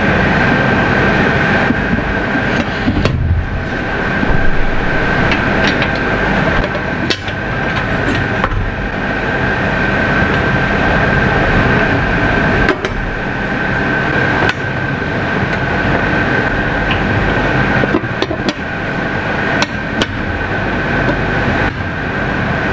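A steady mechanical drone with a constant high whine runs under scattered metallic clanks and knocks as a heavy cast-metal porthole cover is handled and fitted on its hinge pin against the porthole frame.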